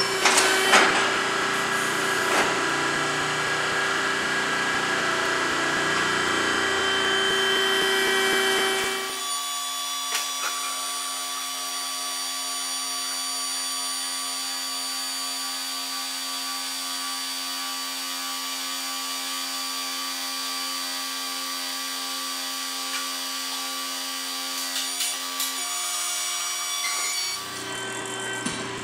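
The Shop Dog's 220-volt hydraulic power unit running steadily as it drives implement hydraulic cylinders, a machine hum with several steady tones. About nine seconds in the sound cuts abruptly to a thinner, higher hum, with a few clicks, and turns fuller again near the end.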